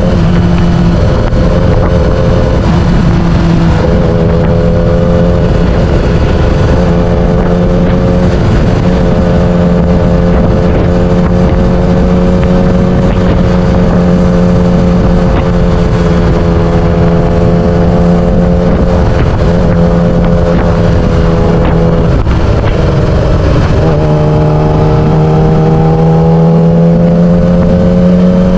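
Yamaha R6 sportbike's inline-four engine running at fairly steady revs while riding, with wind noise on the microphone. About three-quarters of the way through the engine note dips, then climbs slowly.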